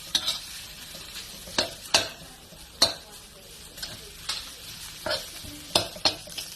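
Fried rice sizzling in a hot pan while a spatula stirs it, with sharp clacks of the spatula scraping and tapping against the pan every second or so.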